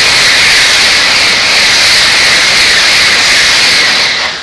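Shinkansen high-speed train passing close by at speed, a loud steady rushing hiss that cuts off sharply near the end as the last car clears.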